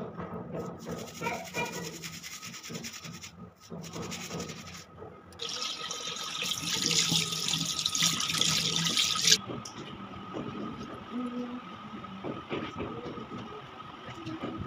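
Tap water running into a sink while silver jewellery is rinsed under it. The flow starts about five seconds in and cuts off suddenly about four seconds later.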